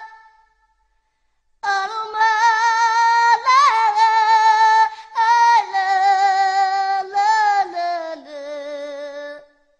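A woman singing unaccompanied, a slow melody with strong vibrato. It starts after about a second and a half of silence, and the last phrase steps down in pitch and fades out shortly before the end.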